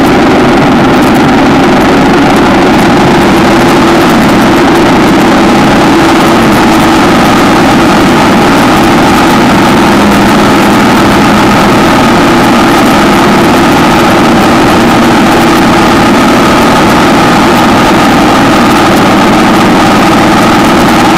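1960 AJS 650 parallel-twin motorcycle engine running steadily and loudly, its pitch holding nearly constant.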